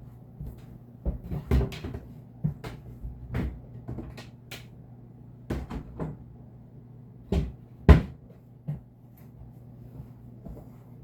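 Irregular knocks, taps and clatters of objects being handled and set down, about a dozen in all, the loudest a sharp knock about eight seconds in, over a faint steady hum.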